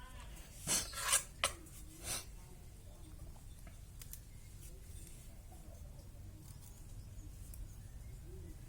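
Knife cutting shallots: four short, crisp cuts in the first two seconds, followed by only a low steady hum.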